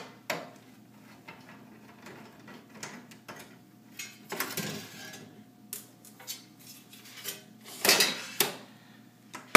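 Metal clicks, scrapes and knocks from a screwdriver at a screw on a steel server sled chassis and the sheet-metal halves being worked loose, with a short scrape about halfway and the loudest clatter near the end.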